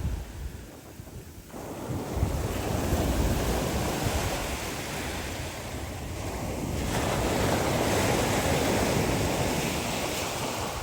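Black Sea waves washing onto the shore, with wind buffeting the microphone. A short lull at the start, then the surf swells up about two seconds in and again around seven seconds.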